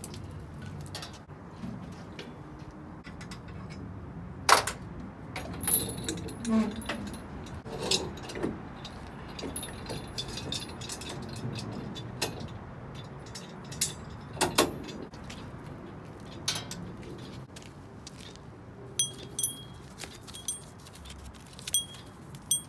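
Metal clinking and rattling from a lifting chain and the steel hooks of lifting straps being handled, with scattered knocks. Several short, ringing clanks come near the end as the hooks knock together.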